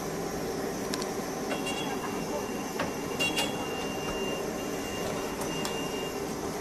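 Water at a rolling boil in a large aluminium pot on a stall burner, a steady rushing noise. A few light clicks of utensils come through, and a thin high whine holds for a few seconds in the middle.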